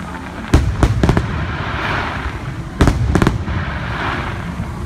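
Aerial firework shells bursting: a cluster of three sharp bangs about half a second in, then another three near the three-second mark, with a noisy crackling haze between them.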